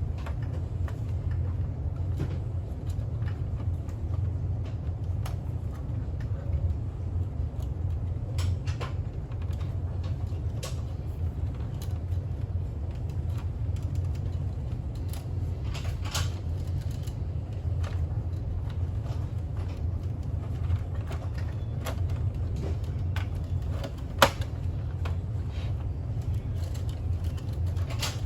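A steady low hum with scattered small clicks and knocks, and one sharp knock near the end.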